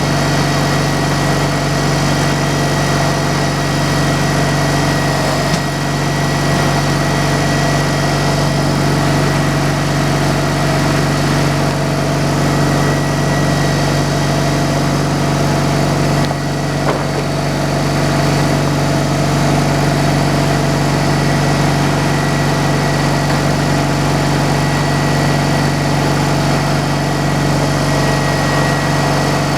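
Sawmill engine running at a steady speed, an even hum with a constant high whine on top.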